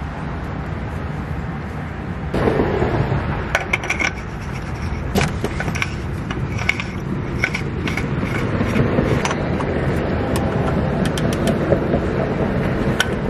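Oil filter housing cap with its new cartridge filter being threaded back onto the engine and tightened with a socket tool, making scattered scrapes, knocks and small clicks, with a quick run of clicks near the end.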